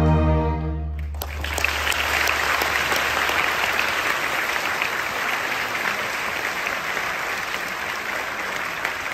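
Combined school band, choir and orchestra holding the final chord of the piece, cut off about a second in, followed by steady audience applause.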